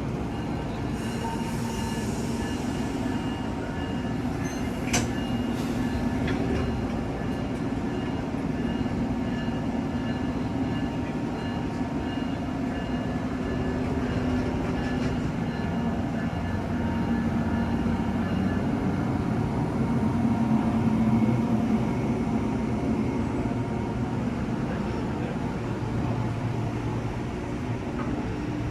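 Amtrak Northeast Regional passenger train at the station platform, giving a steady hum, with a single sharp click about five seconds in.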